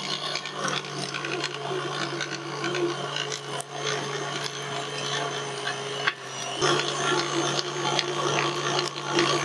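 KitchenAid stand mixer driving its meat grinder attachment, the motor humming steadily under load as meat is pushed through the auger and grinder plate, with a rough grinding noise over the hum. The hum dips briefly about six seconds in, then carries on.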